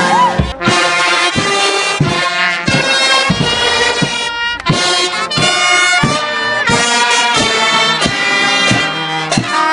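Music with a loud brass-like horn melody of held notes over a steady drum beat.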